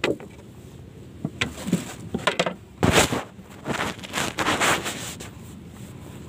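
Irregular knocks, scrapes and rustles of gloved hands and fishing gear handled close to the microphone on a small wooden boat, with a sharp knock at the start and the loudest bursts about three seconds in.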